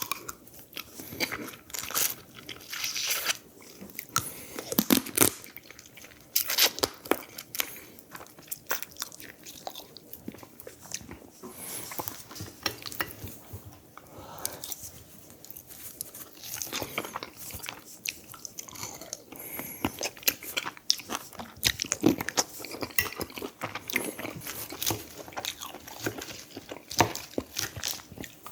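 Close-miked eating: a person chewing and biting food, with irregular crunchy clicks and crackles.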